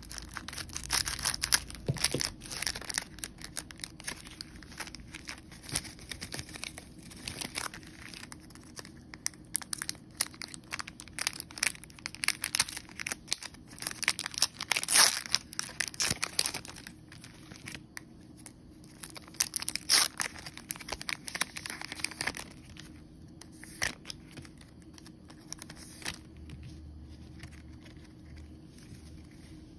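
A trading-card pack's wrapper being torn open and crinkled, in a run of sharp crackling rustles. Near the end it gives way to the quieter handling of the card stack.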